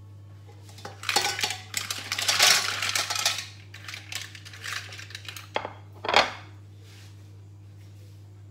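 Green mussels tipped from a plate into a stainless steel pot, the shells clattering against each other and the pot for a couple of seconds. Scattered clinks follow, and a sharp clack about six seconds in.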